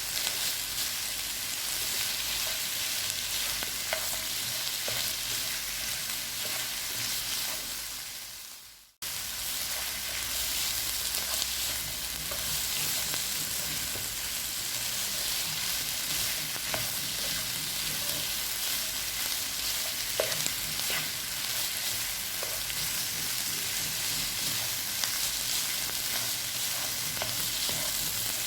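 Chopped chicken, onion, capsicum, carrot and spring onion sizzling in oil in a frying pan while being stirred, with faint scrapes and taps of the spoon on the pan. The sizzle fades out about nine seconds in and cuts straight back in.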